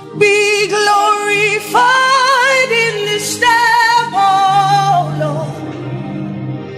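Gospel worship music: a violin plays the melody in long held notes with vibrato and sliding falls between them, over a steady low accompaniment.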